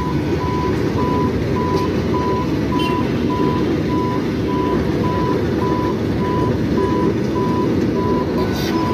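Freight train wagons rumbling steadily past over the track, with an electronic level-crossing warning beeper sounding a steady high beep about twice a second.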